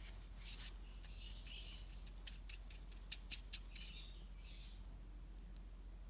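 Hands rolling a small ball of polymer clay between the palms: faint skin-on-clay rubbing with a run of small sharp clicks over the first four seconds, then softer rubbing. A steady low hum lies underneath.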